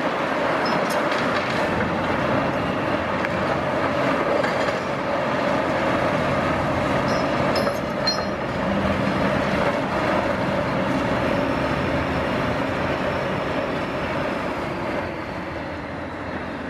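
Caterpillar 349E tracked excavator running steadily under load: its diesel engine and hydraulics drone as the demolition crusher on its arm works through broken concrete and rebar. A few faint metallic squeaks come about halfway through, and the sound eases a little near the end.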